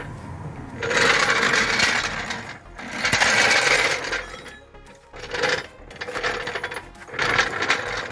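Red trolley (floor) jack being wheeled over rough tarmac, its wheels rattling and grinding in several stretches of a second or so with short pauses between.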